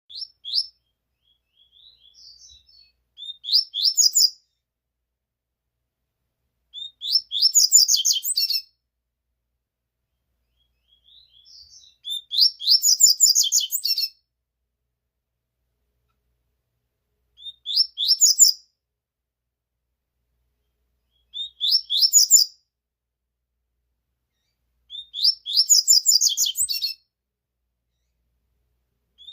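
Double-collared seedeater (coleiro) singing: short, rapid phrases of high, chirping notes, each one to two seconds long, repeated every four to five seconds with silence between.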